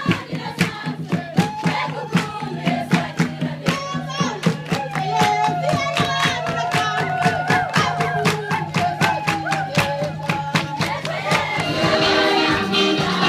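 Voices singing together over a sharp, steady beat of about three strokes a second. About twelve seconds in, it changes to a denser, steadier music.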